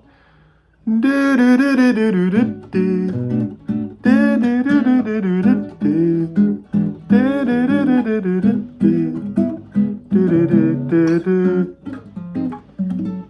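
Acoustic guitar played with a man singing a wordless melody over it in phrases of a second or two, starting about a second in: a bossa-nova-style song idea being tried out.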